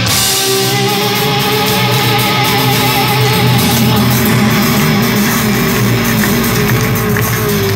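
Heavy metal band playing live: distorted electric guitars, bass and drums, loud and continuous, with a high held note wavering in pitch through the first few seconds.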